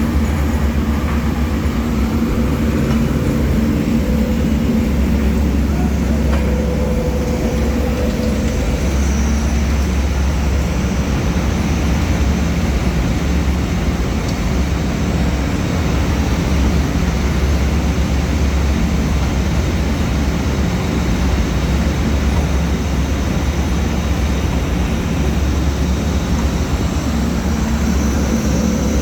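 4R roller grinding mill for dolomite running steadily under load, a continuous loud mechanical drone with a deep hum.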